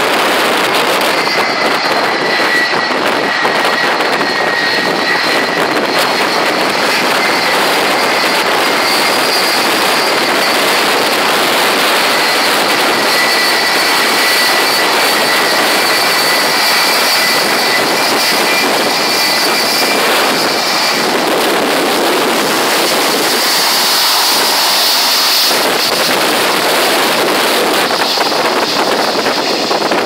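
Boeing 757's jet engines at taxi power: a loud, steady rush with two high whining tones that fade out about two-thirds of the way through, as the aircraft turns past close by. A brighter hiss comes in briefly near the end.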